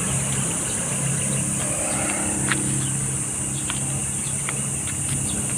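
A steady high-pitched insect drone over a low, steady engine hum, with scattered faint clicks.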